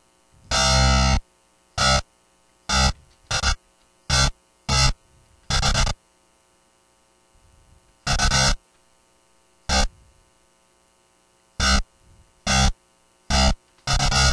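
Distorted electric guitar from FL Studio's FL Slayer plugin on its DIST Metal preset, sounding one note at a time: about a dozen short stabs on the same note (C4), at uneven spacing with silent gaps between, and a longer one near the end.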